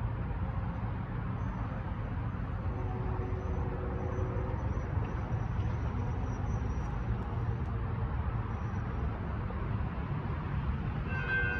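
Steady low rumble of road traffic and city background. In the last half second a railroad crossing's warning bell starts ringing as the signals activate for an approaching train.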